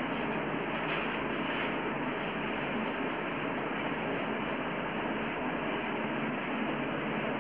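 Steady, even background noise with no speech and no clear distinct event.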